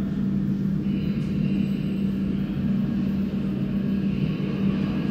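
Steady low rumble of an approaching Jubilee line 1996 Tube Stock train still in the tunnel, with a faint high whine joining about a second in.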